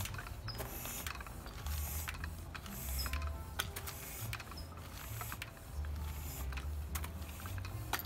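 Hand-held bicycle pump being worked in steady strokes to inflate a new inner tube, each stroke a short hiss of air with a click from the pump, a little under a second apart.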